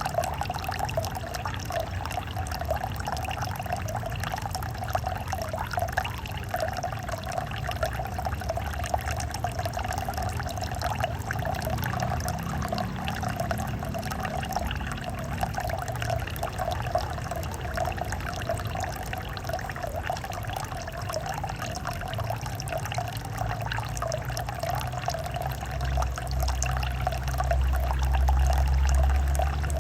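Water from a small waterfall splashing and trickling steadily into a fish pond or tank. A low rumble grows louder near the end.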